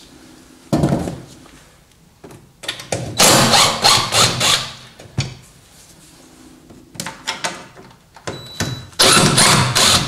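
Cordless impact driver run in about four short bursts, backing out door panel and armrest screws. The longest burst comes around the middle and the loudest near the end.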